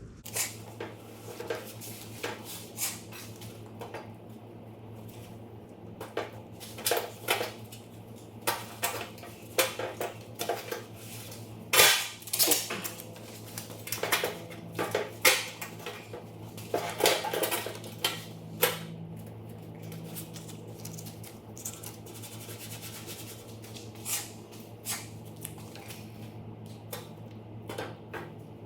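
Irregular metallic clinks and clanks of metal hinges and tools being handled and set against a metal gas tank, over a steady low hum. The loudest knock comes about twelve seconds in.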